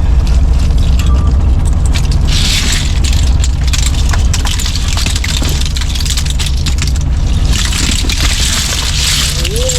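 Small fishing boat's engine running steadily as a gill net is hauled aboard, with splashing and scraping from the wet net coming over the side in two stretches, about two seconds in and again near the end.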